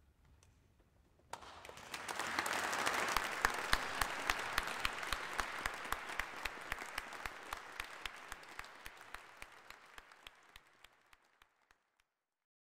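Audience applauding. It breaks out about a second in, with one clapper close by standing out in sharp, evenly spaced claps about four or five a second, and it slowly thins out and stops near the end.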